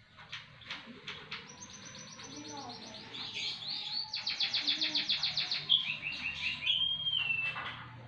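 White-headed munia (emprit haji) singing a trained song filled with notes learned from other birds: a fast run of repeated high notes that grows louder into a very rapid trill, then a long held whistle near the end.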